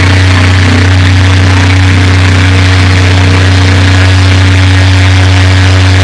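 Live drone-metal band's heavily amplified, distorted guitars and bass holding one low, steady droning note, very loud and overloading a phone microphone.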